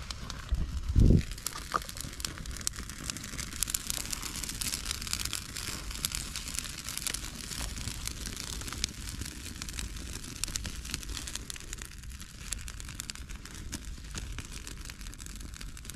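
Small campfire crackling with fine rapid pops as fresh green conifer twigs are laid on and catch, with rustling of the twigs as they are handled. A dull low thump about a second in is the loudest sound.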